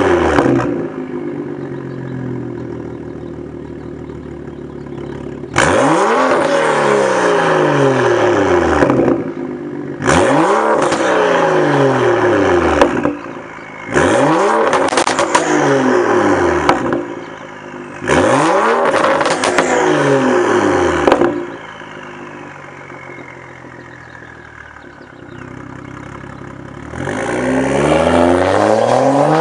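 BMW M235i's turbocharged N55 inline-six, straight-piped from the turbo back with no muffler or resonator, being free-revved in four quick blips of about three seconds each, the revs climbing sharply and then falling back. Between blips and afterwards it settles to a steady idle, and near the end the revs start climbing again. Crackle marks the ends of the blips as the revs drop.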